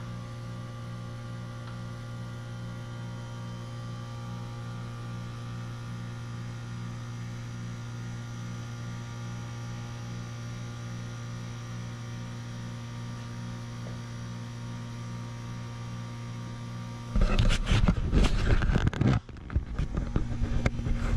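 A WaterFurnace geothermal heat pump running with a steady hum and a faint regular throb, its compressor working while it is being charged with R-427A refrigerant. About seventeen seconds in, loud rustling and knocking break in as the camera is picked up and moved.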